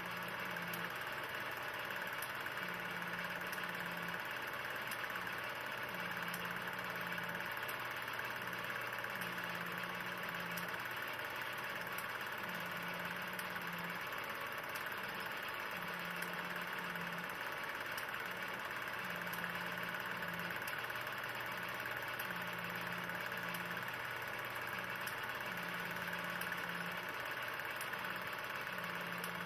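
Film projector running: a steady mechanical whir and hiss, with a low hum that swells and fades about every three seconds.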